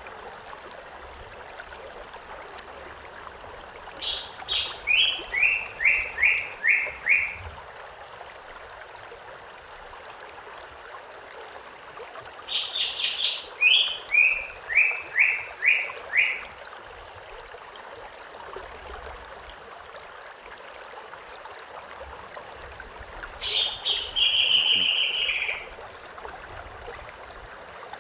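A songbird singing the same short phrase three times, each a few high notes dropping into a run of lower repeated notes, over the steady sound of running stream water.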